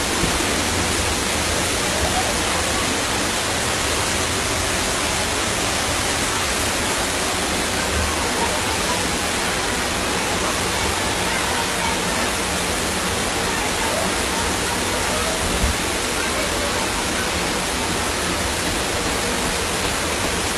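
Floodwater rushing fast down a street around parked cars, a steady loud rushing hiss, with one brief thump near the three-quarter mark.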